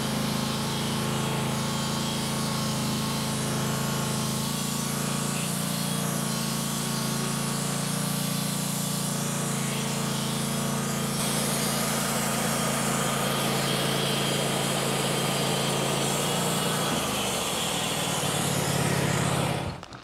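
Wood-Mizer LT15 Wide portable bandsaw sawmill cutting through a maple log, its engine running steadily under load as the blade saws off a board. About 17 seconds in, the engine note changes.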